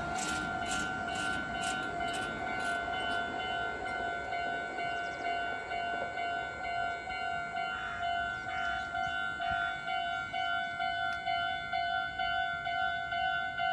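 Japanese railroad crossing warning bell ringing over and over in a steady, evenly repeating two-tone clang. A passing train's rumble and wheel clatter fades away over the first few seconds.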